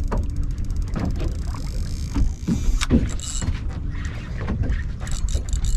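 Wind buffeting the microphone on a small boat at sea, with water slapping against the hull and a few knocks. A fast, fine, even ticking runs through the first couple of seconds.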